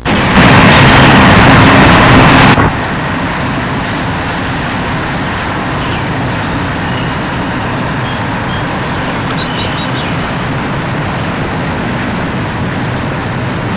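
Union Pacific freight train's diesel locomotives and cars running past as a steady noise. The first two and a half seconds are much louder and harsher, then cut down abruptly to an even level.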